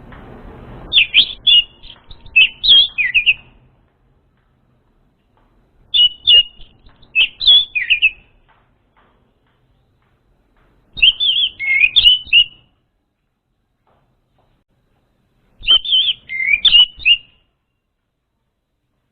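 Orange-headed thrush song: four short phrases of quick, varied whistled notes, each about two seconds long and spaced a few seconds apart, used as a lure call for untrained birds.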